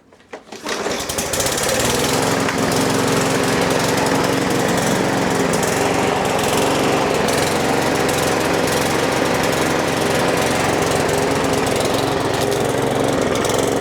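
Murray 22-inch push mower engine starting within about a second and then running steadily. It runs well after a carburetor cleaning and fuel system service that cured a no-start.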